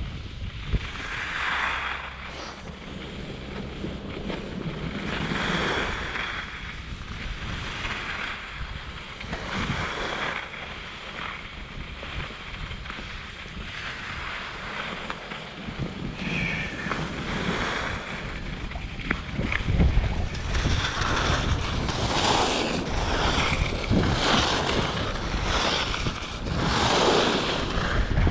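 Wind buffeting the microphone: a rumbling hiss that swells and eases every few seconds and grows stronger in the last third.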